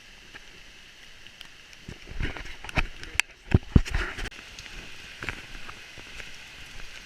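Rain pouring down as a steady hiss, with a run of irregular knocks and thumps from about two to four and a half seconds in.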